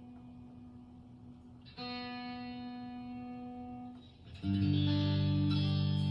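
Custom 24 electric guitar, pickup position 2, ringing out a held note. A new note is picked about two seconds in, then a louder, fuller chord is struck near the end and left to ring.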